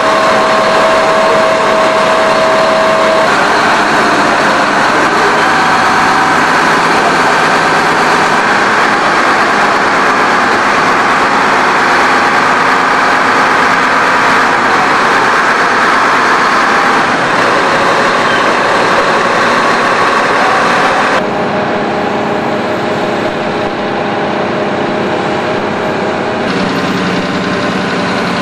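The engine of a large Hyster forklift, the kind that carries the shuttle main engine installer, running steadily, with a dense mechanical hum and several held tones. The sound shifts abruptly a few times, once slightly quieter about two-thirds of the way through.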